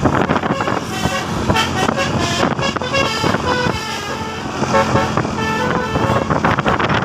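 Flamboyan bus's telolet horn, a multi-tone air horn, playing a quick tune of changing notes over a steady low rumble.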